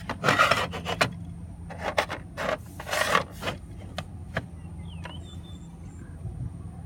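Hands rubbing and scraping over plastic toy-playset pieces, in short bursts over the first three and a half seconds, with a few light clicks. A steady low hum runs underneath.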